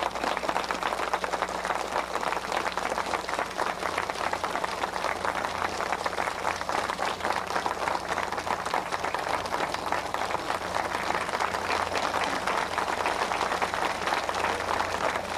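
Audience applauding steadily, a dense sustained clapping.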